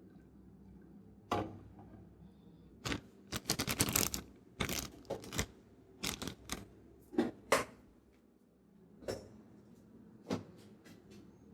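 Metal kitchen vessels knocking and clinking against each other as they are handled, in irregular sharp clatters, with a dense run in the middle and a few single knocks near the end.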